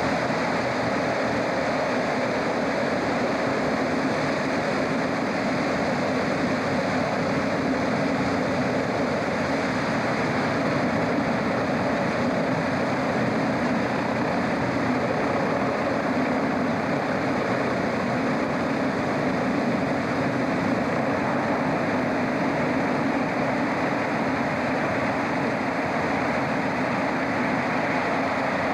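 SR.N4 cross-Channel hovercraft running on its air cushion: a steady, loud rush of noise from its pylon-mounted propellers and lift air, unchanging throughout.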